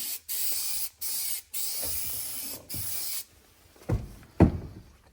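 Aerosol can of spray adhesive hissing in several short bursts with brief pauses between them, followed by two thumps near the end.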